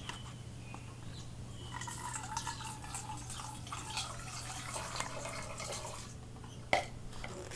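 Water pouring from a small pitcher into a bowl, trickling and splashing unevenly for a few seconds with a rising fill tone. A single sharp knock near the end is the loudest sound, and a steady low hum runs underneath.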